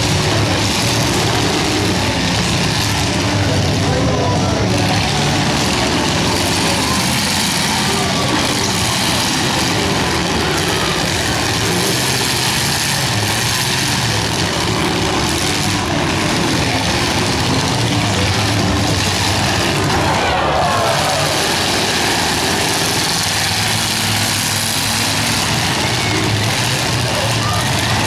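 Engines of several demolition derby cars running and revving steadily as they drive around and push into one another on the dirt.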